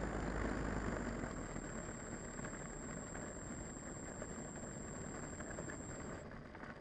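Electric motor and propeller of a FlyZone Cessna 182 RC model running at low throttle while the model rolls over asphalt, a steady noisy whir with a thin high whine that cuts off about six seconds in. The sound then fades as the propeller winds down near the end.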